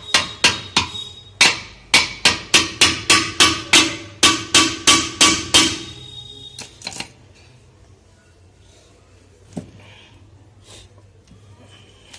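Hammer blows on metal, about four a second for some six seconds, each strike ringing, as the bearing is knocked off the crankshaft of a 2 HP air compressor. A few separate knocks follow.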